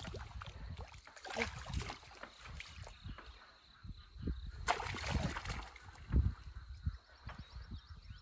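Legs wading through shallow, muddy paddy water, with irregular sloshes and splashes, several stronger around a second in and again near the middle.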